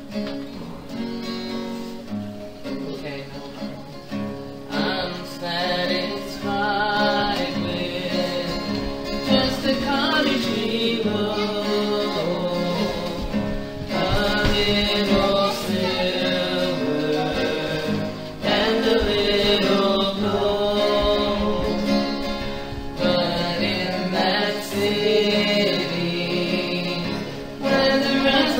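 A small group of voices singing a song together to guitar accompaniment, in sung phrases several seconds long, getting louder about five seconds in.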